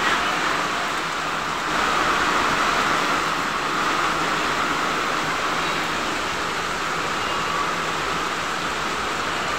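Heavy typhoon rain pouring down, a steady dense hiss that holds the same level throughout.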